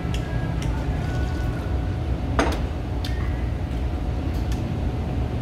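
A man drinking broth straight from a bowl over a steady low restaurant room rumble and faint background music. A single short, sharp sound stands out about halfway through, with a few small clicks besides.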